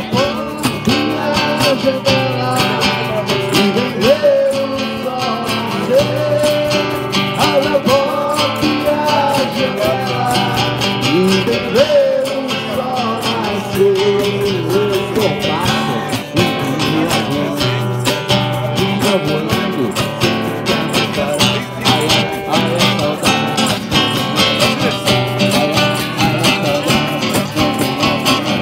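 Music with strummed acoustic guitar and a singing voice carrying a wavering melody.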